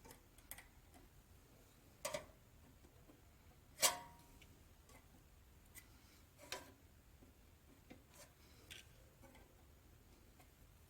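A few scattered sharp clicks and knocks, about seven in all; the loudest comes about four seconds in and rings briefly.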